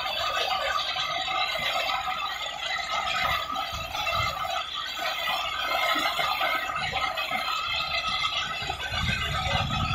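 Belt grinder running steadily while a knife handle is pressed against the moving belt, grinding it to shape, with a low rumble swelling near the end.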